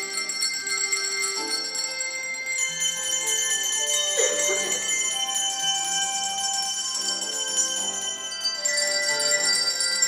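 Children ringing a set of colored handbells: several bell notes sound and ring on, overlapping one another. Underneath, a lower accompaniment melody steps from note to note.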